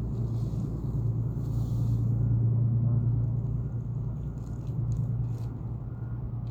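Steady low engine hum of an idling motor vehicle, swelling slightly a couple of seconds in, with faint light rattles near the end.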